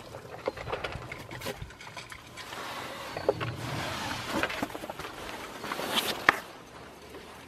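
Dog eating dry kibble from a plastic bowl: irregular crunching and clicking as it chews, with one sharp click near the end.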